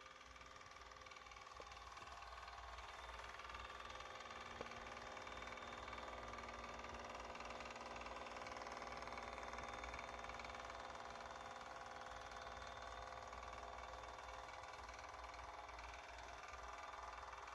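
Faint steady hum of a radio-controlled model ship's motor, growing louder as the boat passes close and easing as it moves away.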